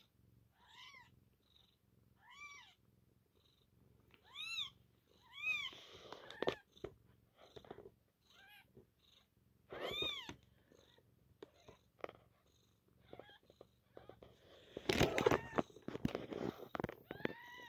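Newborn Maine coon x elf sphynx kittens giving short, high, squeaky mews, each rising and falling in pitch, a handful of them a second or several apart, over the mother cat's faint steady purring. About fifteen seconds in, a louder burst of rustling and handling noise.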